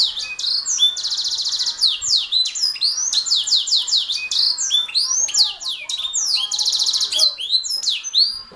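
Domestic canary singing a fast, continuous song of rapid trills and sweeping whistled notes, which stops just before the end.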